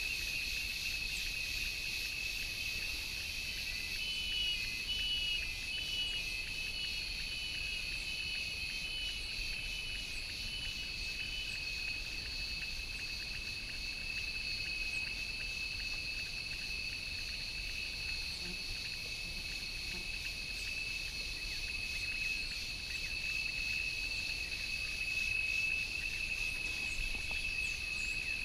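Steady, high-pitched chorus of insects trilling without a break, with a short run of quick, evenly spaced chirps about four seconds in.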